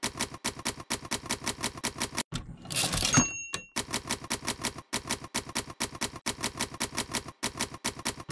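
Manual typewriter typing, a rapid run of keystrokes. About three seconds in, the carriage is returned with a sliding sweep and the bell dings once, then the keystrokes resume.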